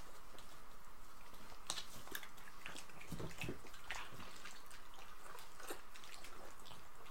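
Shiba Inu dogs chewing pieces of steak: irregular wet clicks and smacks of chewing and biting, with a couple of duller thumps about three seconds in.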